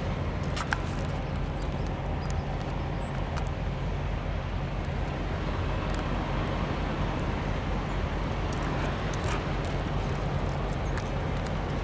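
Steady low drone of vehicle engines, with scattered faint clicks and ticks.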